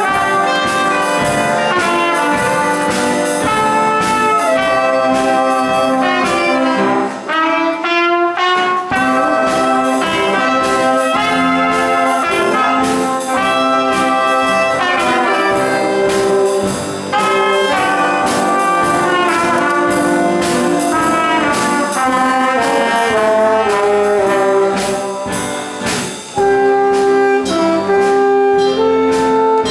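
Traditional jazz band playing a blues, with trombone, trumpet, clarinet, alto saxophone and French horn over piano and a steady beat. The low end drops out for a moment about eight seconds in, and the full band comes in louder near the end.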